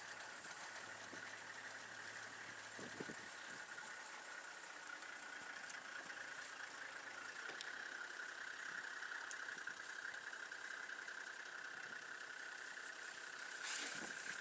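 Vehicle engine running quietly and steadily, with a steady high-pitched drone over it.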